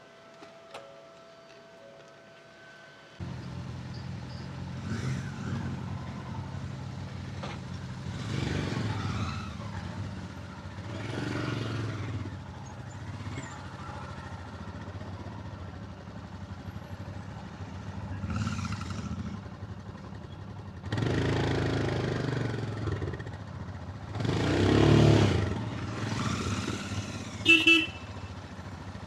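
Motorcycle engine starting suddenly about three seconds in and running, swelling louder several times as it is revved or ridden. Two short horn beeps sound near the end.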